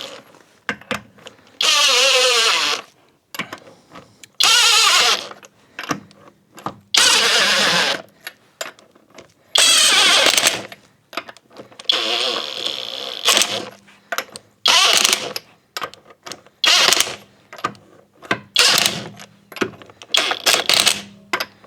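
Impact wrench on a low setting spinning wheel lug nuts on, in repeated bursts of about a second each every two to three seconds, the bursts getting shorter and closer together near the end.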